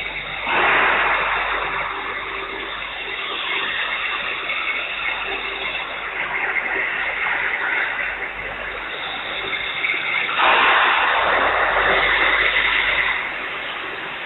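Steady rushing background noise of a large factory workshop, with two louder surges of hiss, one about half a second in and a longer one about ten seconds in.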